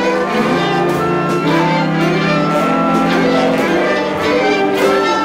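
A large ensemble of strings, winds and brass playing layered held notes and chords that shift every second or so, with short percussion strikes at intervals.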